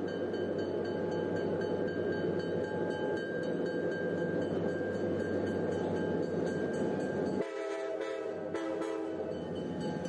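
A train running with a steady rumble. About seven and a half seconds in, a train horn sounds a chord of several notes for about a second and a half, and the rumble drops away while it sounds.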